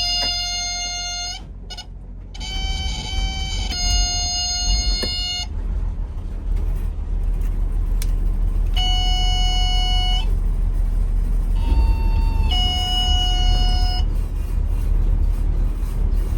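A motor yacht's engines running with a deep, steady rumble that grows louder about two seconds in. Over it sound six long, even electronic beeps, each held for about a second; the fifth slides down in pitch into the sixth.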